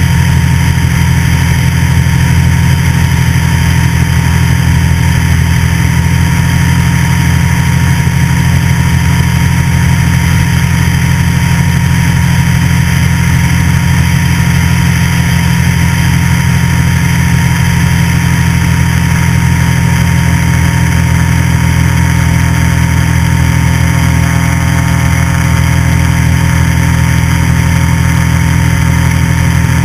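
Light aircraft engine and propeller running steadily in level flight, heard from a camera mounted on the airframe.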